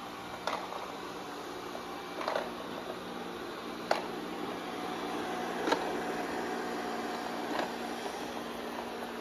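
Robot vacuum and mop running with a steady hum, with a short sharp knock about every two seconds.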